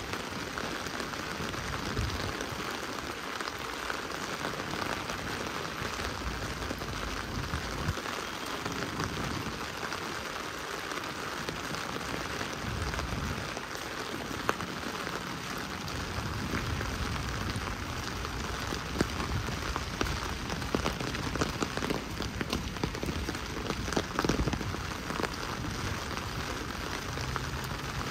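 Heavy rain falling and splashing steadily on hard surfaces, with many individual drops ticking close by.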